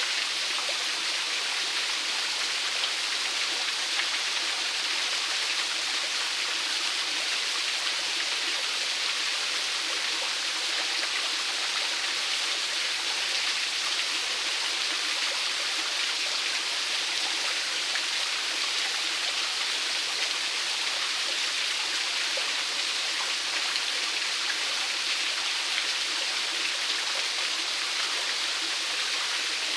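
Small waterfall splashing steadily, an even hiss of falling water.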